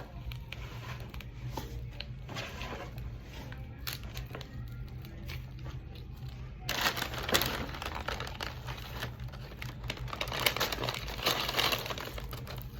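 Crinkling and tearing of a seasoning packet being opened and handled over fries in a paper bag. The rustling grows louder and busier about seven seconds in.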